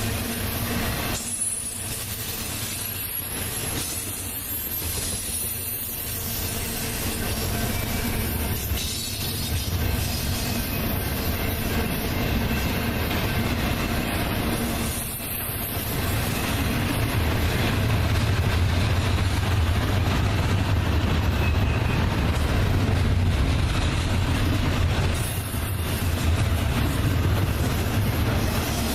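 Double-stack container cars rolling past: a steady rumble of steel wheels on rail, louder in the second half, with occasional faint high wheel squeal.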